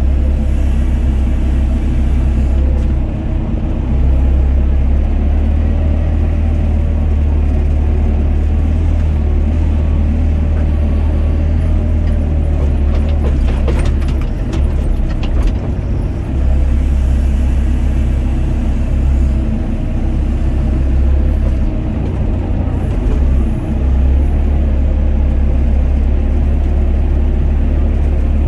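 Doosan DX55 mini excavator's diesel engine running under digging load. Its low drone swells and dips as the hydraulics work the boom and bucket, with a few short clatters about halfway through.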